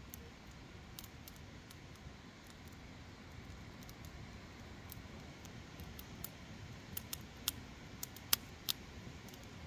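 Wood fire crackling: scattered sharp pops and snaps over a low steady rumble, the pops coming more often in the second half, with the loudest one near the end.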